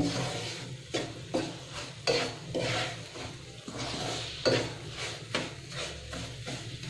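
A spatula scraping and stirring semolina in a nonstick pan in irregular strokes about once or twice a second, with ghee sizzling under it. The semolina is being roasted in ghee over very low heat.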